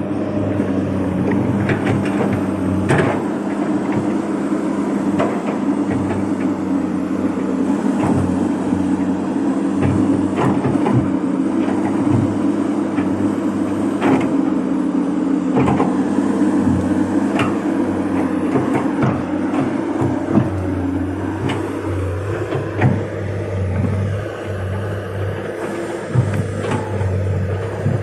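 Komatsu PC200 hydraulic excavator's diesel engine running steadily, with scattered knocks and clanks throughout.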